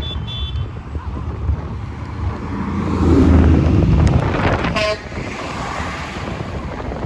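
Large truck driving past with its engine running, sounding its horn about three seconds in for under two seconds before the horn cuts off sharply.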